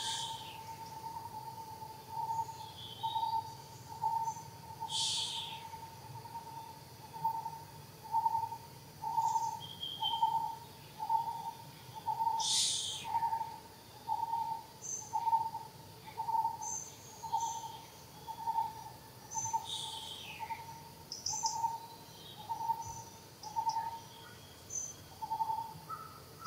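A bird calling one low, steady-pitched note over and over, about once a second, with a few brief, higher chirps from other birds.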